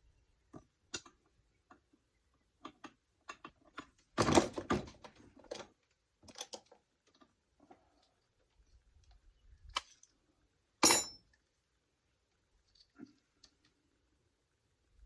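Scattered clicks and clatter of tools and chainsaw parts being handled on a workbench, with a longer burst of clatter about four seconds in and one loud, sharp knock about eleven seconds in.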